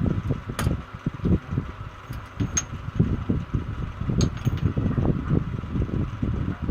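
Fluttering low rumble of moving air with a faint steady hum, broken by three sharp clicks about half a second, two and a half and four seconds in.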